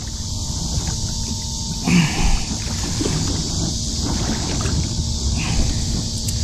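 Shallow river water sloshing and splashing around a large blue catfish held by the jaw in the water, over a steady low rumble. The loudest moment is a brief swell about two seconds in, with a smaller one near the end.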